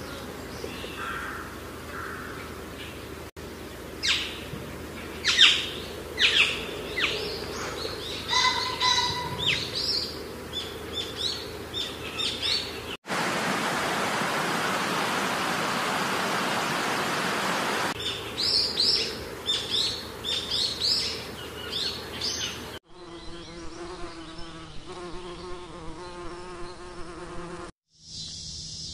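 Birds chirping in quick runs of short falling notes, broken in the middle by about five seconds of steady hiss. Near the end comes a low, pulsing insect buzz.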